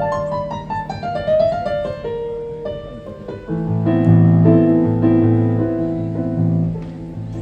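Live instrumental ensemble playing a bambuco, Colombian Andean music. A quick descending run of notes opens the passage, then fuller chords over a pulsing bass come in about halfway.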